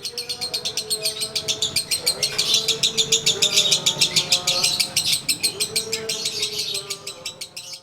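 Lovebird in a long 'ngekek' chatter: a fast, unbroken stream of harsh high notes at about ten a second, fading near the end. This is the continuous 'konslet' style prized in singing lovebirds. Fainter whistled tones glide beneath the chatter.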